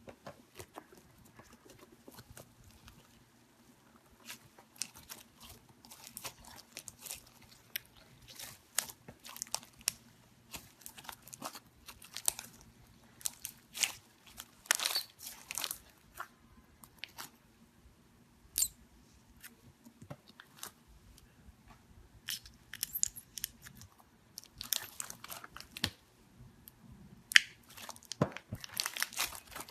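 Slime being worked by hand, giving irregular sticky clicks, pops and crackles, thicker toward the end.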